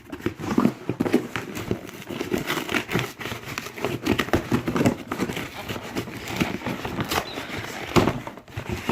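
Packaging crinkling and rustling with many small clicks and crackles as a supplement tub is handled and opened.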